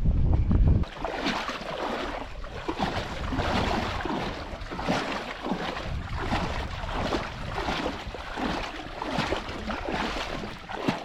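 Canoe being paddled: water splashing and lapping around the paddles and hull in irregular strokes. Wind buffets the microphone for about the first second.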